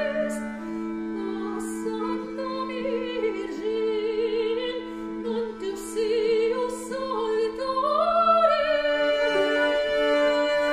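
Female voice singing a medieval cantiga in Galician-Portuguese, an ornamented melody with vibrato, over a bowed medieval fiddle holding steady drone notes. About eight and a half seconds in, the voice rises and the drone shifts.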